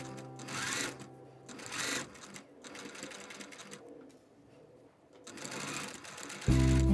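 Domestic sewing machine stitching a seam in short runs with brief pauses between. Background music comes in loudly near the end.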